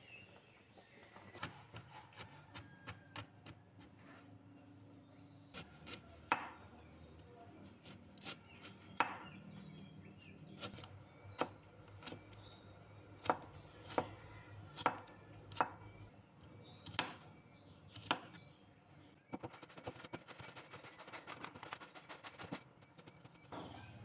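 Kitchen knife chopping carrots and garlic on a plastic cutting board: single sharp chops at irregular intervals, then a quick run of rapid mincing strokes near the end.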